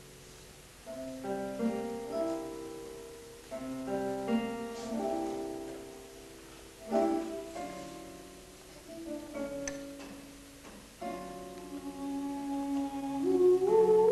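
Contemporary chamber ensemble playing sparse chords that are struck every few seconds, ring and fade away, then a line of notes that climbs upward and grows louder near the end.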